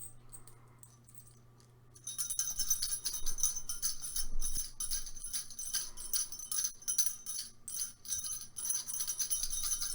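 Small jingle bell shaken continuously, a bright jingling that starts about two seconds in.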